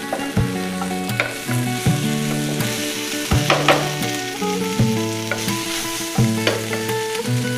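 Hot oil sizzling in a kadai as fried yam slices are stir-fried and tossed, with a wooden spatula scraping and knocking against the pan every second or so.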